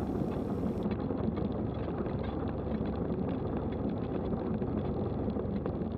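Cessna 172's engine running steadily, heard inside the cockpit.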